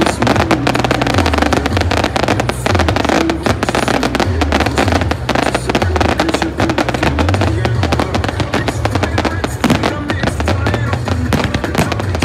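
Aerial fireworks bursting and crackling in quick succession, over loud pop music with a heavy bass line.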